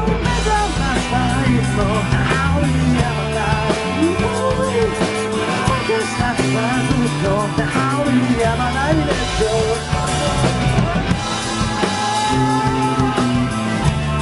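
Rock band playing the song's instrumental passage: drum kit, bass and electric guitars, with a lead line of bending, gliding notes over the top.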